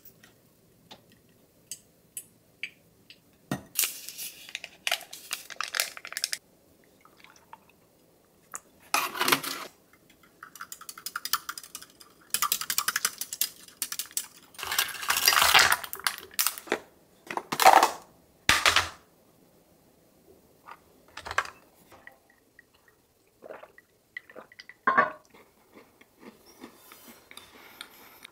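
A string of separate kitchen sounds with quiet gaps between them: dishes and cutlery clinking, and a long metal stirrer clinking in a glass mug as a drink is stirred.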